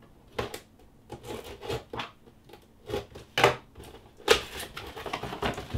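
Small scissors slitting the packing tape on a small cardboard box, then the box being opened: a run of short scrapes and cardboard rustles, with two louder ones past the middle.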